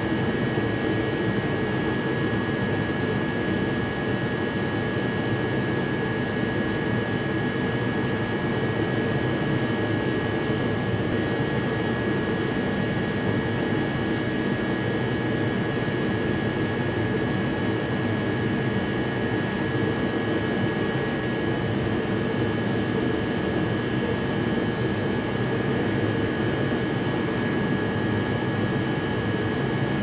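A steady machine drone with a thin, high whine running through it, unchanging throughout.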